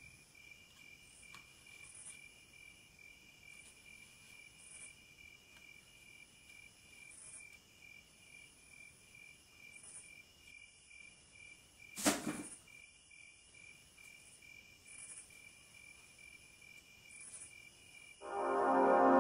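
Faint, high chirping of insects, pulsing at an even pace, with one sharp knock about twelve seconds in. Loud music with sustained organ-like chords comes in near the end.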